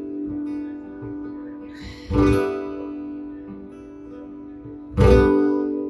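Acoustic guitar strummed slowly as song accompaniment: two chords about three seconds apart, each left to ring out.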